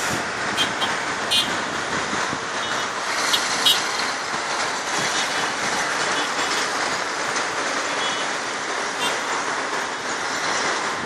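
Dense multi-lane road traffic: a steady wash of engine and tyre noise from cars, trucks and buses, with several short horn toots, most in the first four seconds and one more near the end.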